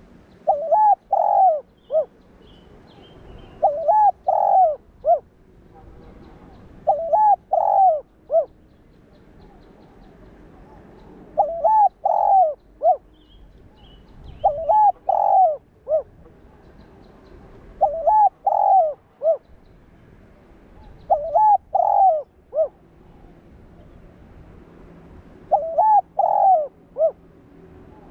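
Spotted dove cooing: a phrase of three or four coos repeated about every three and a half seconds.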